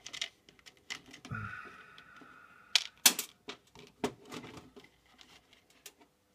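Fingers fishing small metal locomotive buffers out of a clear plastic parts tub: scattered sharp clicks and taps of the parts and the plastic, with rubbing against the tub. The loudest clicks come about three seconds in.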